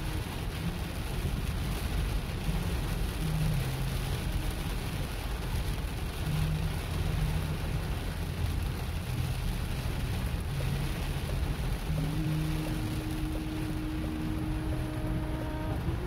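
Heavy rain drumming on a moving car, heard inside the cabin, over the steady low rumble of the engine and tyres on a wet road. A thin steady hum joins in about three-quarters of the way through.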